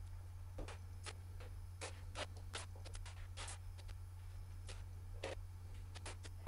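Pneumatic brad nailer firing brads into plywood: a quick, uneven series of a dozen or more sharp clicks, about two a second, over a steady low hum.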